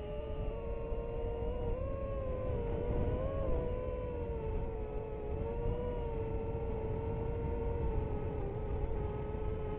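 DJI FPV drone's motors and propellers whining. The pitch wobbles up and down for the first few seconds as the throttle shifts, then holds steady, over a low rumble.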